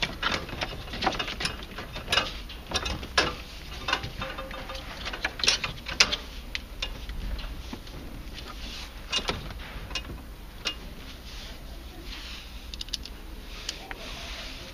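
Irregular clicks, knocks and scrapes of plastic hoses and fittings being worked back onto a hot tub circulation pump by hand. The knocks come thick at first and thin out over the last few seconds.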